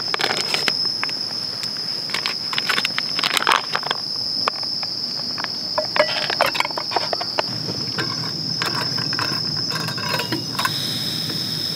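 Insects, crickets by the sound of it, trilling steadily in a high tone, with irregular crinkling and crackling of a plastic food pouch being torn open and squeezed out by hand.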